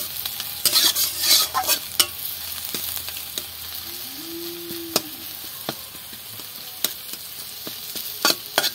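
Sliced onions and garlic cloves sizzling in hot oil in a metal kadai, stirred with a flat metal spatula that scrapes and clicks against the pan.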